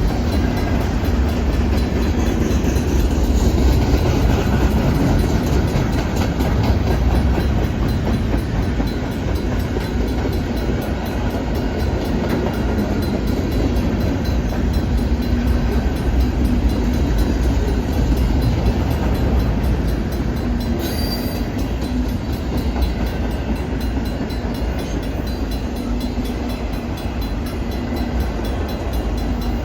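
Freight cars of a Norfolk Southern manifest train rolling past: a steady loud rumble of steel wheels on the rails, with some clickety-clack over the rail joints.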